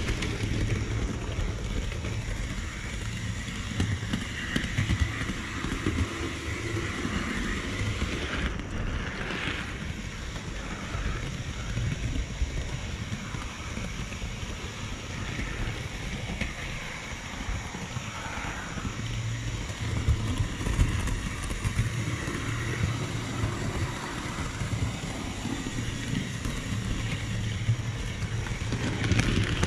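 Model railway train running on its track, heard from a camera riding on it: a steady rumble of wheels and motor on the rails with a low hum and scattered small clicks.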